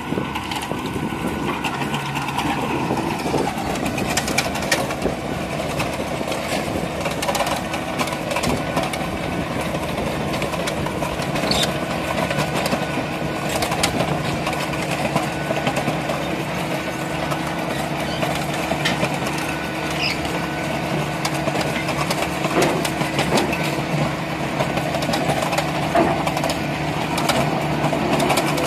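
Valtra T144 tractor's diesel engine running steadily under load as it pulls a Thiérart vineyard plough through the soil. Scattered clicks and knocks come from the earth and stones that the plough throws up.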